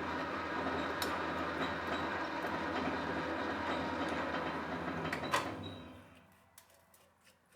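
Metal lathe running steadily while turning an aluminium part. About five seconds in there is a click, then the lathe winds down to near quiet, leaving a few faint ticks.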